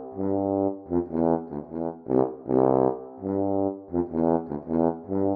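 Brass music: a trombone-like brass instrument playing a short tune of separate notes, mostly short with a few held longer.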